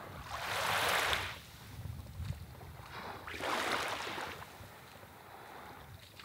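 Small waves washing up onto a sandy beach in shallow water: two soft swells of wash, each about a second long and about three seconds apart, over a low wind rumble.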